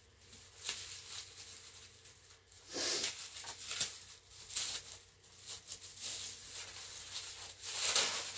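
Gift wrapping paper rustling and crinkling as a wrapped present is handled and opened, in irregular bursts that are loudest about three seconds in and near the end.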